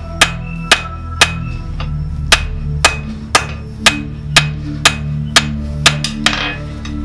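Hand hammer striking red-hot mild steel on an anvil while forging a tong blank, about two ringing blows a second. Background music plays under it.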